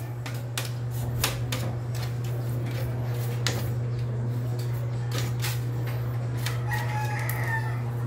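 Scattered light clicks and taps from handling the loose white plastic side cover of a portable air conditioner, over a steady low hum. A faint pitched call sounds briefly near the end.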